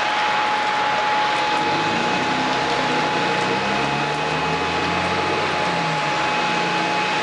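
Steady hiss of heavy rain, with a constant thin high tone in the background. From about a second and a half in, a low drone that shifts in pitch joins it.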